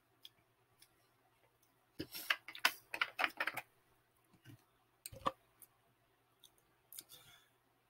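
Faint clicks and knocks of a drinking glass and a bottle being handled: a quick cluster of about a dozen around two seconds in, then a few more about five seconds in.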